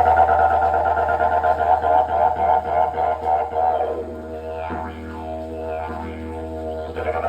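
Didgeridoo played to imitate a laughing kookaburra: a drone with a fast rippling pulse over it, then a quieter stretch about halfway with calls that slide down in pitch, before the full drone comes back near the end.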